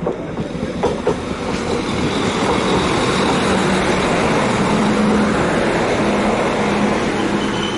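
Northern Class 195 diesel multiple unit running past close by, its engine hum and wheel-on-rail noise building over the first two seconds and then holding steady. A few sharp clicks of wheels over rail joints come about a second in, and a faint high squeal near the end.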